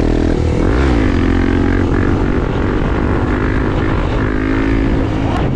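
Motorcycle engine running, revving up and back down about a second in, then holding a steady pitch.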